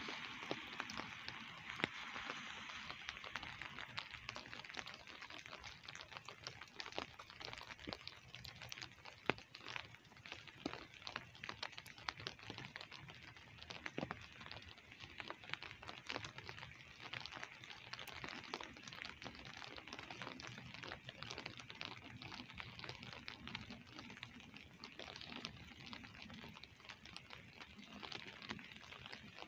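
Light rain pattering, many drops ticking irregularly close by over a soft, even hiss. In the first couple of seconds a car's tyre hiss on the wet road fades away.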